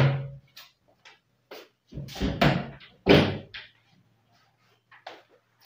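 Kitchen wall-cabinet doors being shut and swung by hand: a loud bang at the very start as a lift-up flap door closes, then a run of lighter knocks, a cluster of bangs around two seconds in, another loud bang about three seconds in, and a couple of light knocks near the end.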